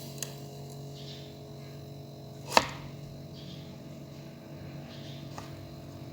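Refrigerator compressor running with a steady hum while it is charged with freon. A faint click right at the start and one loud sharp click about two and a half seconds in.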